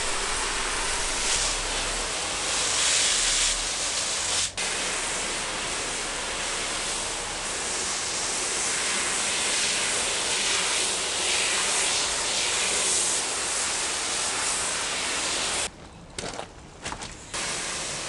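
Pistol-grip garden hose spray nozzle spraying water onto a soaked hanging rug: a steady hiss of spray striking the wet pile. It cuts out for an instant about four and a half seconds in, and near the end it drops away and comes back several times in quick succession.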